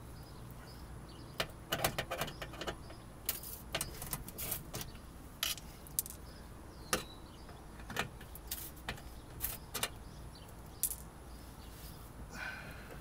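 Irregular sharp clicks and clacks of a small hand tool turning metal quarter-turn fasteners out of a car's plastic engine splash shield. The clicks bunch up around two and four seconds in, then come singly.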